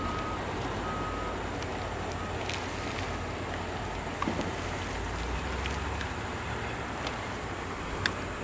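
Steady outdoor rumble and hiss. A short high beep repeats about once a second for the first couple of seconds and fades, and there are a few faint clicks later.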